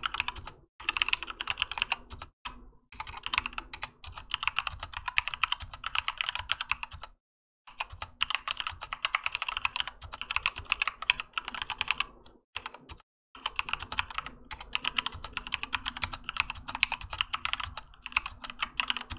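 Keychron K2 mechanical keyboard with Gateron Red linear switches and OEM-profile PBT keycaps, typed on quickly in long runs of keystrokes. The typing breaks off briefly about 7 seconds in and again about 12 seconds in.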